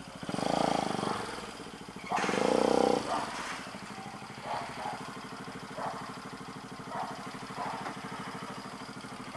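Motorcycle engine idling steadily through a newly fitted muffler, with two short revs in the first three seconds and a few small throttle blips after.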